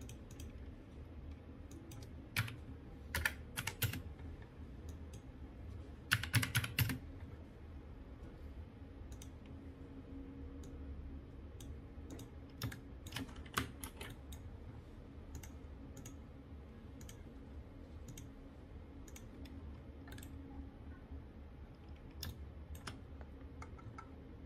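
Scattered clicks from a computer keyboard and mouse, with a quick run of keystrokes about six seconds in and another flurry of clicks around thirteen seconds. A faint steady low hum lies underneath.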